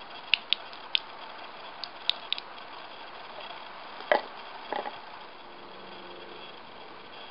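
Water poured onto slate rock, heard as a series of sharp drips and splats over the first two and a half seconds, then a larger splash about four seconds in and a few more splats just after, over a steady background hiss.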